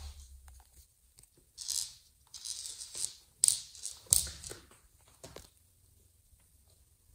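Kittens' paws scampering and claws scratching on a laminate floor and a fabric cushion as they play, in several short scuffling bursts, the loudest about three and a half and four seconds in.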